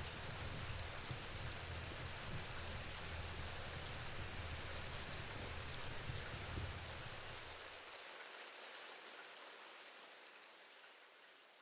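Steady rain with scattered sharp drop ticks, fading out over the last few seconds; a low rumble under it stops about eight seconds in.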